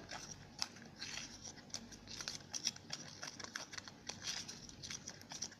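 Slime glue being stirred with a stirrer in a small mixing container: a steady run of quick, irregular clicks and scrapes of the stirrer against the container.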